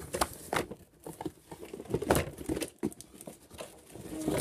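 Cardboard toy box being handled and pulled open: irregular rustling, crinkling and tearing, with scattered sharp knocks, the loudest near the end.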